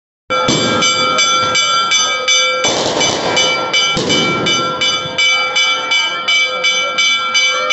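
A bell struck rapidly and evenly, about three strokes a second, its ringing tones carrying over from stroke to stroke. A rushing burst of noise comes about three seconds in and a sharp bang about a second later.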